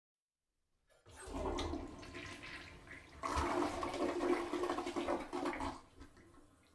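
A toilet flushing in a small bathroom: the rush of water starts about a second in, surges louder about three seconds in, then drains away near the end.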